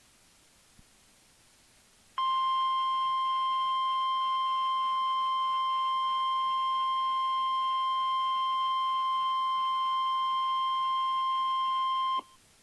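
NOAA Weather Radio 1050 Hz warning alarm tone: one steady electronic tone that starts about two seconds in, holds for about ten seconds and cuts off sharply. It is the alert signal that a warning message is about to follow.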